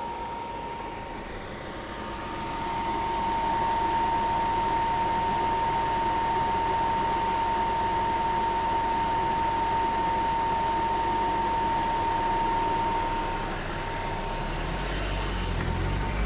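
1990 Volvo 240 DL running, with a thin steady whine over the engine noise. It grows louder about two seconds in and holds steady, then swells deeper with a hiss near the end.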